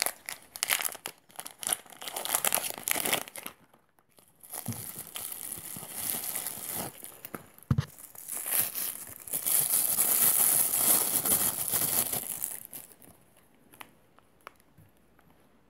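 Plastic bag crinkling and tearing as it is handled and opened by hand, in bouts over the first twelve seconds, with a single knock about eight seconds in. Near the end only a few faint clicks as the metal spinner is handled.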